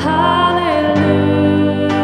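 Live worship band playing a slow song: a woman singing held notes over acoustic and electric guitars, keyboard and bass.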